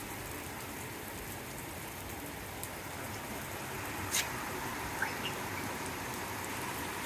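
Heavy rain falling steadily on a flat concrete rooftop and the surrounding city roofs, an even hiss of drops. A single sharp tap comes about four seconds in, and a brief rising squeak about a second later.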